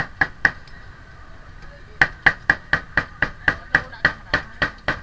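A cleaver chopping roast meat on a thick round wooden chopping block. Three quick chops, a pause of about a second and a half, then a steady run of chops about four a second.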